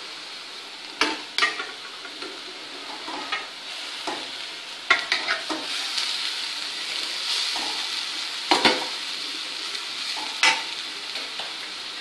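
Amla paste sizzling in a stainless steel kadai over a gas flame as cooked rice is tipped in from a steel vessel, with a steel ladle knocking and scraping against the pan. Several sharp metal knocks stand out over the steady sizzle: about a second in, around five seconds in, and twice more near the end.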